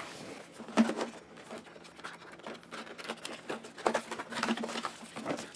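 A keyboard's box being opened and unpacked by hand: irregular rustling, sliding and light knocks of the box and its packaging.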